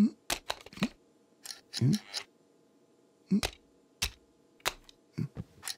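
Sharp plastic clicks and clacks, irregularly spaced, from a toy slot car being set into its track and its hand controller being handled. Short, low vocal murmurs come between the clicks.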